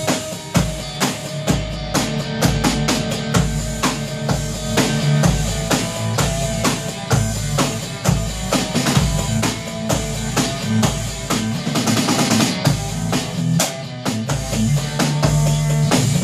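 A band jamming an instrumental: a steady drum beat with electric guitar and low bass notes that change about once a second.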